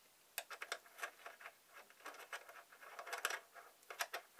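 Screwdriver working a small screw in the X-ray head's mounting yoke: an irregular string of short scratchy clicks and scrapes as the blade is seated and turned.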